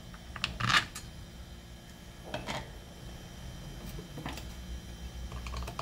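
A few light clicks and knocks of small parts and tools being handled on a workbench while screws are set into the saw's housing. The loudest knock comes just under a second in, with softer ones about two and a half and four seconds in.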